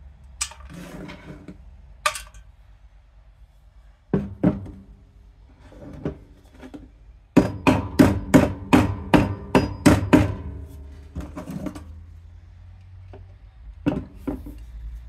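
Hammer blows on a screwdriver used as a chisel against the metal housing of a small electric motor, to split it at the seam. A few scattered knocks come first, then a quick run of about a dozen ringing strikes, roughly four a second, starting about seven seconds in.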